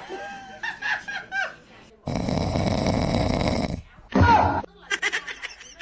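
A loud rasping snore lasting almost two seconds, with short pitched calls before it and a brief loud falling cry after it.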